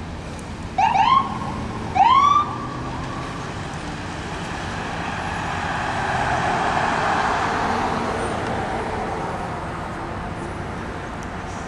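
Ford-chassis ambulance's electronic siren giving two short rising whoops about a second apart, warning traffic as it runs code 3. Then the ambulance's engine and tyres swell as it drives past and fade away.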